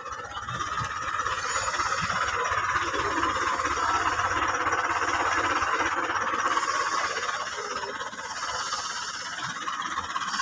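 Wheat seed drill in motion, its disc openers and serrated roller running through dry, clodded soil with a steady rattling, rushing noise that builds about a second in.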